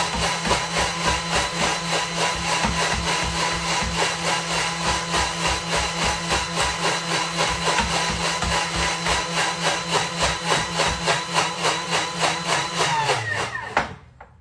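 Thermomix running at high speed, blending soaked tiger nuts and water into tiger nut milk: a steady motor whine with a rapid pulsing. Near the end the motor winds down with a falling pitch and stops.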